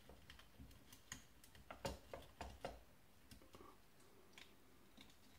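Faint, irregular clicks and taps of a plastic model-locomotive chassis and its wiring being handled, most of them bunched between one and three seconds in.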